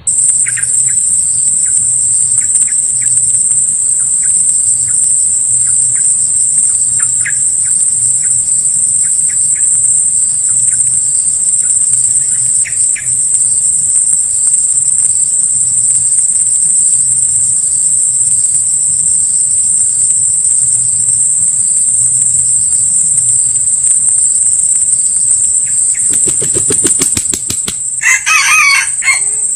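Steady, loud high-pitched insect drone of crickets or cicadas, with scattered short bird chirps in the first half. Near the end a junglefowl cock beats its wings in a rapid flurry, then crows once.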